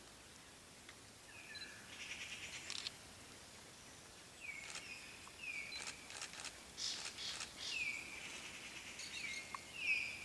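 Birds calling: faint, repeated short chirps that swoop down and level off, with bursts of quick dry rattling notes, most active in the second half.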